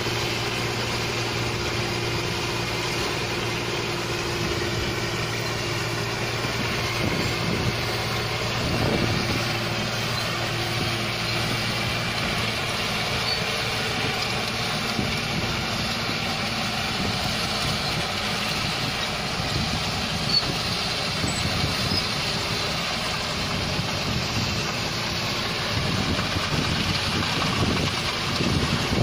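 Rice combine harvester running steadily while cutting paddy: a constant engine drone with a steady hum from the machinery, growing a little louder and rougher near the end.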